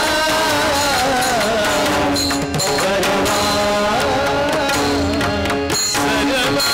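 Devotional Marathi bhajan music: a wavering sung melody over held harmonium notes, with pakhawaj barrel drums beating a steady rhythm.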